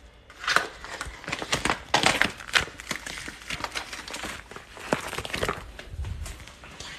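Plastic packaging on groceries crinkling and rustling in irregular bursts, with small knocks, as packaged meat is handled and stacked.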